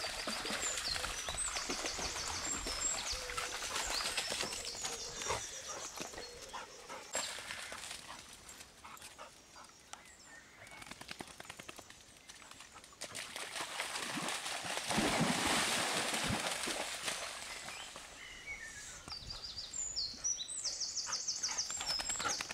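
Dogs moving about in a shallow stream and along its bank, over the rush of flowing water. A songbird sings high, fast trilled phrases near the start and again near the end, and a louder swell of rushing noise comes about two-thirds of the way through.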